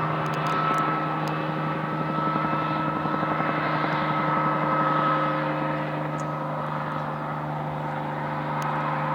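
Helicopter running steadily, a constant drone with a high whine over it, swelling a little toward the middle and easing off again.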